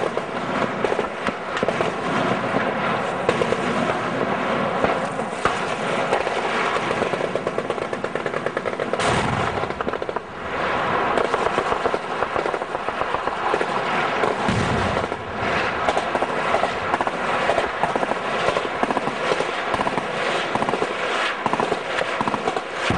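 Sustained automatic weapons fire, with bursts of rapid shots crowding one on another, and a couple of heavier bangs about nine and fourteen seconds in.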